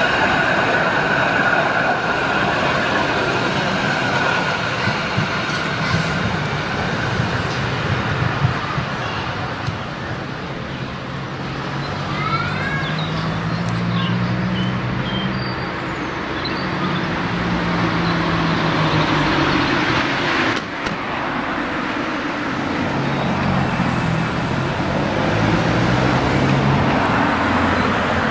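A Bogestra M-type narrow-gauge tram passing close by, with a steady high whine that fades over the first few seconds as it moves away. Road traffic noise continues throughout.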